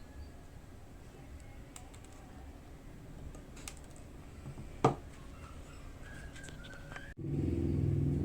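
Faint clicks and taps of small handling noises, with one sharp click about five seconds in. About a second before the end the sound cuts abruptly to a louder low rumble.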